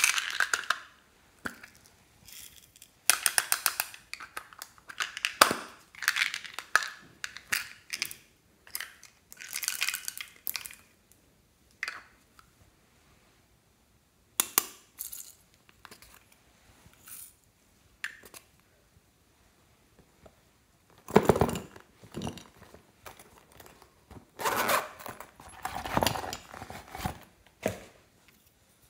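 Small plastic cosmetic cases and a lipstick tube being handled: taps, clicks and rustling in short separate bursts with quiet pauses between.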